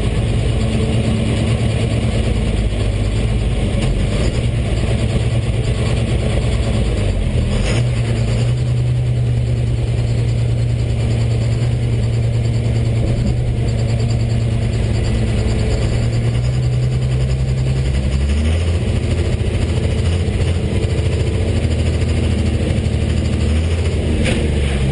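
1st Gen Cummins diesel with a P-pump running at low engine speed, heard from inside the truck's cab. The engine note steps up about eight seconds in and settles lower again around eighteen seconds in.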